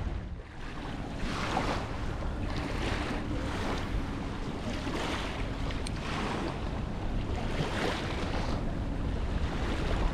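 Small waves washing on the shore, swelling and falling away every second or two, with wind rumbling on the microphone.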